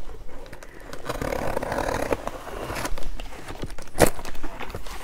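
A cardboard box being opened by hand: scraping and rustling of the packaging, with a few sharp clicks, the loudest about four seconds in.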